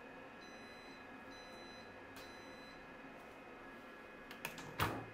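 Compact Cook Elite multi-cooker giving three short, faint beeps, then a few clicks and one sharp clack near the end as its lid clamps are released.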